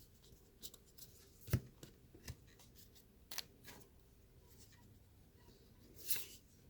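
Faint handling of baseball trading cards as they are flipped and slid against one another in the hand: scattered soft ticks and brushes, with a sharper tap about a second and a half in and a longer brushing swish near the end.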